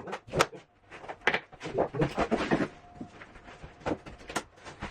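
Sharp, irregular knocks as a cork click-lock floor plank is tapped into place through a leftover offcut, which keeps the plank edges from breaking. There are a handful of separate knocks and a short cluster near the middle.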